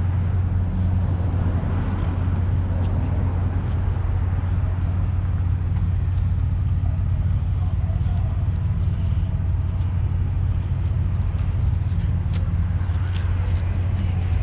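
Steady low drone of motor-vehicle noise, even in level throughout, with a few faint light clicks over it.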